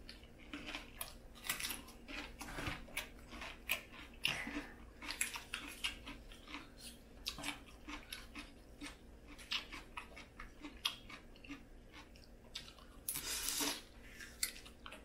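A person eating Cajun-style crawfish, heard close up: chewing and crunching with many irregular clicks and smacks, and a longer noisy stretch near the end.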